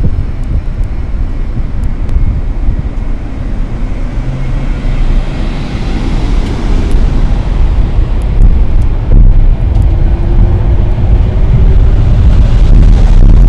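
Metro-North Railroad commuter train pulling out along the platform, its low rumble growing louder as it picks up speed, with a faint rising whine a little before the end and wind buffeting the microphone.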